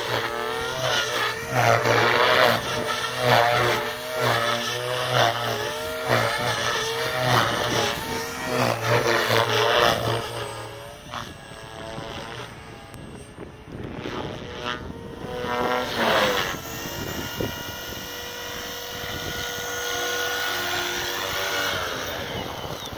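OXY 4 electric RC helicopter flying: a whirring motor-and-rotor whine that surges and wavers in pitch with each manoeuvre for the first ten seconds or so, then a steadier whine that winds down as it sets down on the grass near the end.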